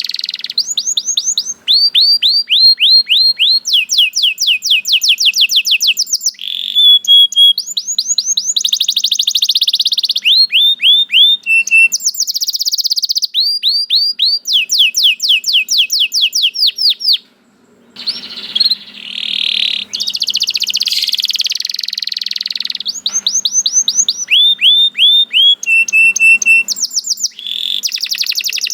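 Domestic canary singing a long continuous song. It strings together trills of rapid, repeated downward-sweeping notes, buzzier rolling phrases and short steady whistled notes, with a brief break about seventeen seconds in.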